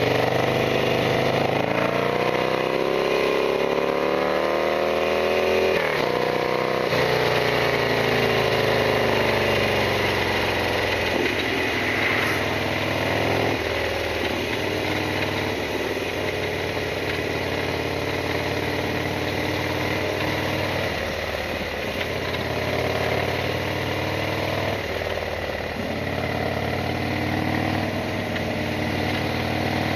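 Harley-Davidson Sportster XL1200R's air-cooled 1200 cc V-twin engine under way, its note climbing over the first six seconds, breaking off as if for a gear change, then falling and rising again several times with the throttle.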